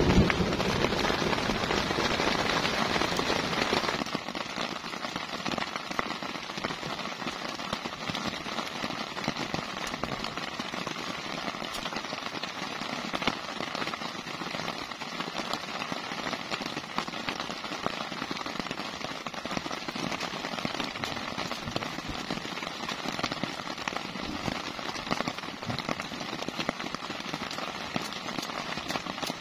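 Heavy rain falling on the shelter: a steady hiss of many close, crackling drop impacts. For the first four seconds it is louder, with a low rumble that stops abruptly.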